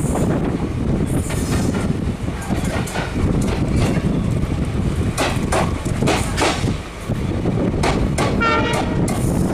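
Passenger train running slowly through a station, heard from the open coach door: a steady rumble of wheels on rails, with a run of sharp clicks in the second half and a brief higher-pitched tone near the end.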